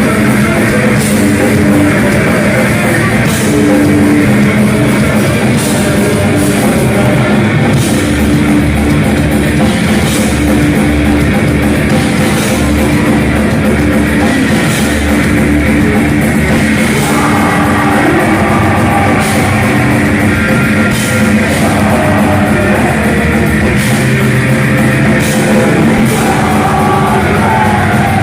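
Heavy metal band playing live: distorted guitars over a drum kit, with cymbal strokes at an even beat and a wavering higher line entering about halfway through.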